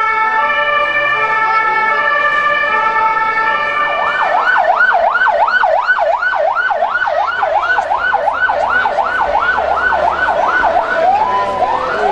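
Ambulance siren, first holding a steady wail, then switching about four seconds in to a fast yelp that sweeps up and down about three times a second. The yelp breaks off briefly near the end, then starts again.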